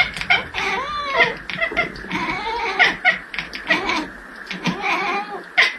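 A cat meowing: one call that rises and falls in pitch about a second in, over a busy clatter of clicks and knocks.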